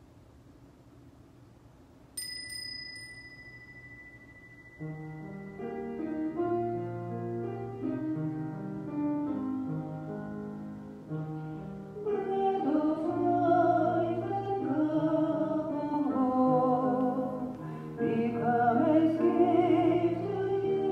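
A bell struck once about two seconds in, ringing on and fading over a few seconds. Then an organ starts sustained chords with a moving bass, and about twelve seconds in a singer joins in with the entrance hymn.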